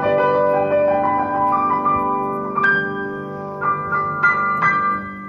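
Grand piano played slowly: held chords ringing at first, then a handful of separate notes struck higher up over the second half, the playing getting quieter.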